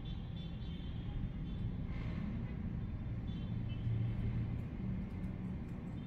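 Distant city traffic heard from above: a steady low rumble of many vehicles, with faint high thin tones coming and going.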